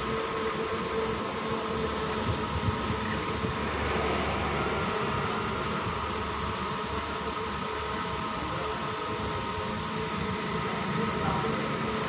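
Steady whirring hum of a fan, with two faint short high beeps, one about four seconds in and one near ten seconds.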